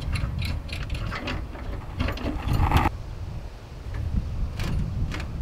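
Metal clicks and scrapes of battery cable clamps being handled and fitted onto a car battery's terminals, with a scrape about two seconds in, over a steady low rumble.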